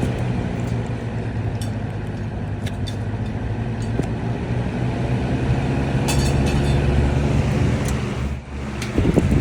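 Lasko 3733 20-inch box fan running on high speed: a steady motor hum under the rush of air, with a few faint clicks. The sound dips briefly about eight seconds in, and something louder briefly disturbs it at the end.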